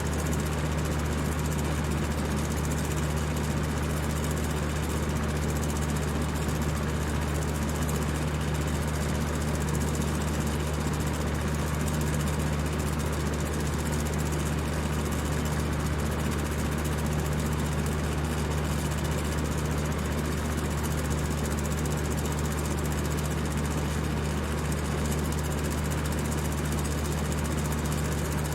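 High-speed electric fan running steadily: a constant whir of rushing air over a low, even motor hum.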